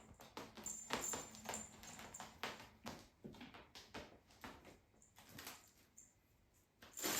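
Irregular scratching, scrabbling and soft tapping as a kitten's claws grip and shift on a cactus-shaped cat scratcher. It goes quieter shortly before the end.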